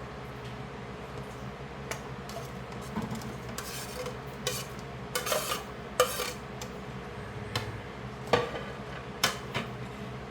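Chopped peppers being moved from one bowl into another: scattered clinks and scrapes of a utensil against bowls and dishes, the sharpest knocks about six and eight seconds in, over a steady low hum.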